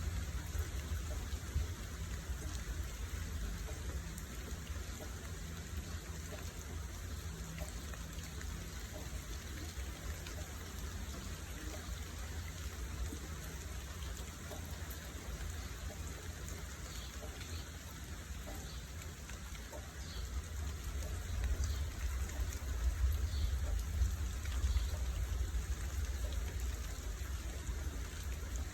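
Steady hiss of water, rain or running water, with a constant low rumble underneath.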